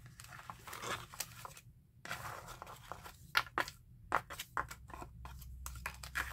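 Craft papers and paper pieces being handled and shuffled: rustling and crinkling broken by a string of sharp taps and clicks, with a short pause about two seconds in.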